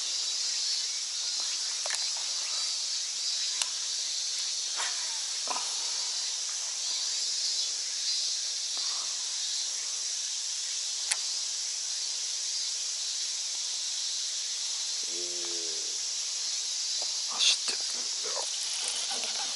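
Steady, high-pitched hiss of a summer insect chorus, with a few faint scattered clicks and a sharper click near the end.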